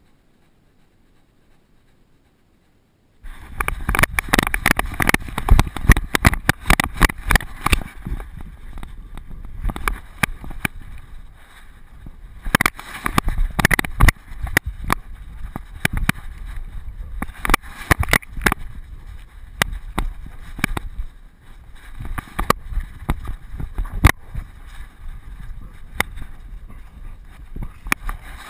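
Harness-mounted GoPro jostled by a running, playing dog: dense, irregular knocks and rattles over a rush of wind on the microphone. It starts abruptly about three seconds in, after near silence.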